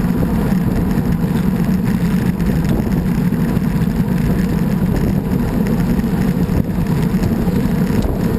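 Steady rush of wind buffeting an action camera's microphone while riding, mixed with rolling road noise. It stays even throughout, with no engine note or knocks standing out.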